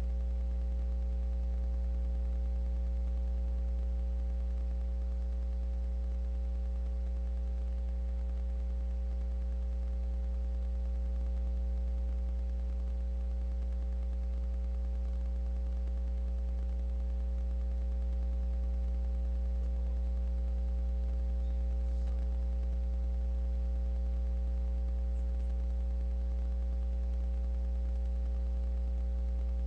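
Steady electrical mains hum with a faint buzz of higher overtones, unchanging throughout.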